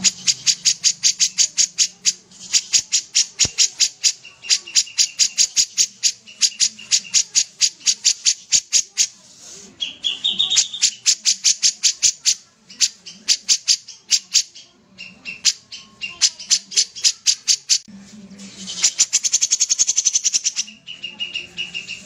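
Caged kapas tembak bulbul singing vigorously: long strings of sharp, high notes repeated quickly, about eight to ten a second, broken by short pauses. A denser, faster run comes near the end.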